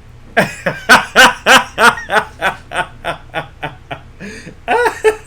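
A person laughing: a run of about a dozen quick pitched 'ha' pulses, about four a second, that fade over some three seconds, then another short burst of laughter near the end.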